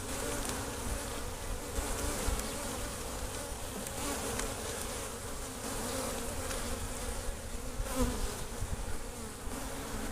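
Honeybees buzzing steadily from an opened hive as its frames are inspected, a dense drone with a few faint clicks of handling.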